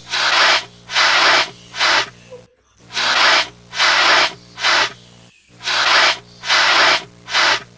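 Hissing firefighting spray in short bursts of about half a second, in groups of three repeating about every three seconds: putting out the fire.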